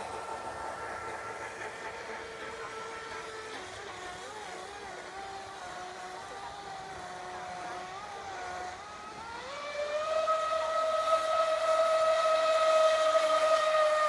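A radio-controlled offshore boat's motor and propeller whining as it runs across the water. The whine is steady and sinks a little in pitch, then about nine seconds in it rises and gets louder and holds there. The boat is fitted with a stock propeller that the owner knew was too small in diameter.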